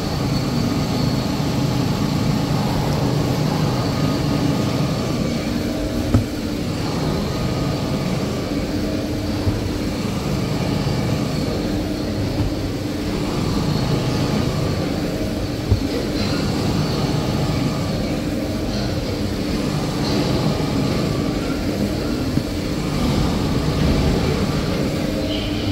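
Steady drone of tissue-paper converting machinery running on a factory floor, with a few short sharp knocks, about 6 s in and near 16 s.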